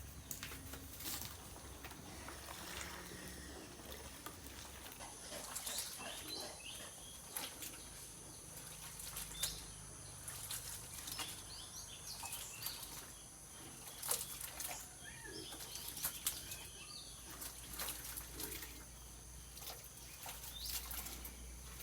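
Quiet farmyard ambience: many scattered sharp clicks and knocks, with short high chirps. A steady high whine starts about five seconds in.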